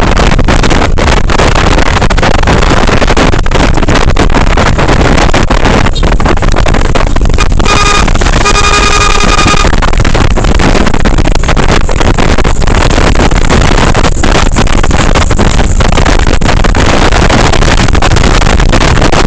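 Loud, steady wind rush and engine noise from a moving vehicle, with wind buffeting the microphone. About eight seconds in, a horn sounds: a short blast, then a longer one of about a second and a half.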